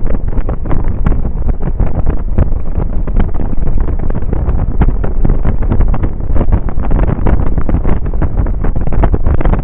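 Heavy wind buffeting on the microphone of a camera mounted on a Suzuki Burgman 650 maxi-scooter riding at road speed, a loud, steady low rush with constant fluttering gusts.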